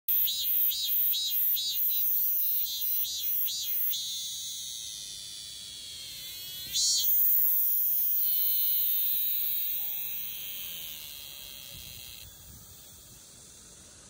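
Male cicada singing: a run of even pulses, about two a second, then a long steady high-pitched buzz that swells sharply about seven seconds in and fades away near the end.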